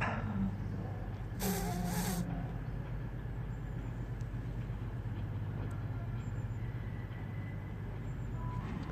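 Diesel train engine idling at a station platform, a low steady hum. A short hiss of air comes about one and a half seconds in and lasts under a second.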